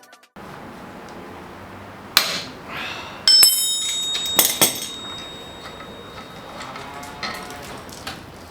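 A few sharp hammer blows on metal, one of them ringing on briefly, as a ball joint separator is driven to split a car's suspension ball joint.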